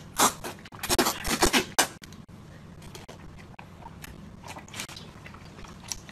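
People slurping and sucking up long strips of food in chili oil: a run of loud wet slurps in the first two seconds, then faint mouth sounds while they chew.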